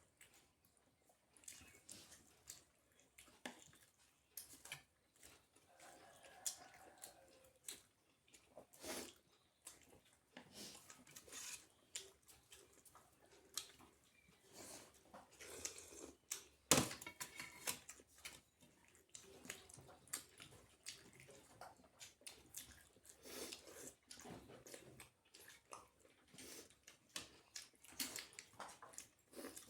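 A person eating roti with dal and curry by hand: close, irregular wet chewing and mouth sounds with soft clicks and smacks, one sharper click about halfway through.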